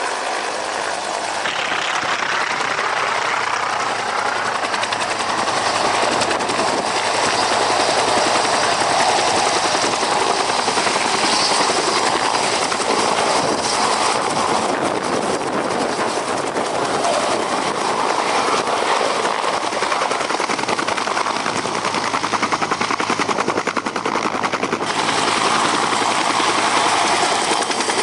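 Helicopter flying, its rotor blades making a rapid, even chopping slap over a steady engine noise.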